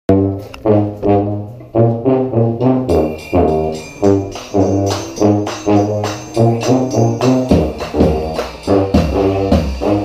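Brass band playing a repeated, punchy low brass riff, with more instruments and percussion joining about three seconds in and a heavier low end in the second half.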